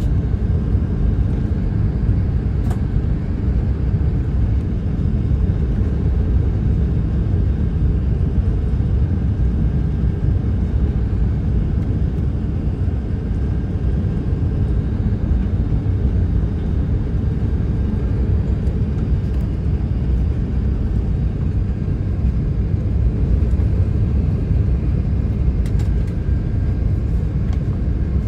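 Airbus A380 cabin noise on final approach: a steady low rumble of the engines and rushing air, heard from inside the cabin.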